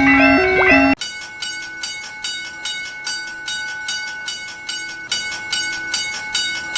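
Japanese level-crossing warning bell ringing steadily, about two to three dings a second with a held tone under it. A short looping electronic tune cuts off about a second in, just before the bell starts.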